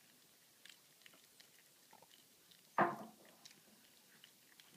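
A cat eating from a bowl, chewing and biting with faint small clicks. About three seconds in, one short, much louder sound stands out from the chewing and fades within about half a second.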